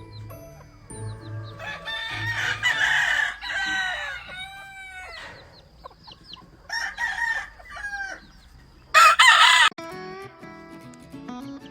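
Gamefowl roosters crowing: a long crow about two seconds in, another around seven seconds, and a short, loudest crow near the end, with faint background music underneath.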